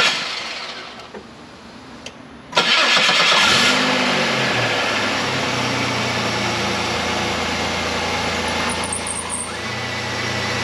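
GM 3.8 L 3800 Series II V6 on its first cold start after a lower intake gasket reseal. The starter cranks, then the engine catches about two and a half seconds in with a brief flare of revs and settles into a steady idle.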